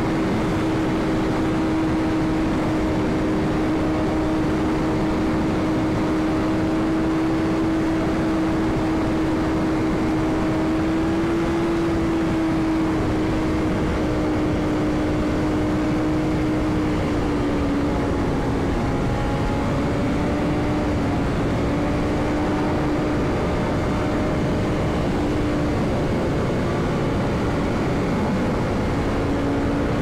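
BMW S1000RR's inline-four engine holding a steady highway cruise, with wind rushing over the helmet-mounted microphone. The engine note eases slightly lower about halfway through.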